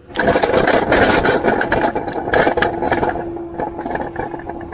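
Excavator bucket teeth ripping into a shale bank: loud crunching, scraping and clattering of breaking shale slabs, starting suddenly and easing off after about three seconds. The machine's steady hum runs underneath.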